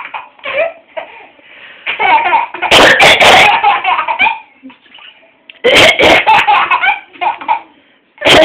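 Laughter in several bouts, set off by a woman's coughing, with a few sharp coughs among the laughs.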